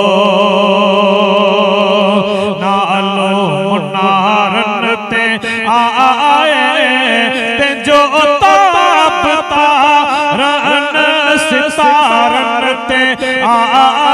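A man singing a devotional naat in praise of the Prophet Muhammad into a microphone. He holds a long note for the first couple of seconds, then moves into wavering, ornamented runs with heavy vibrato.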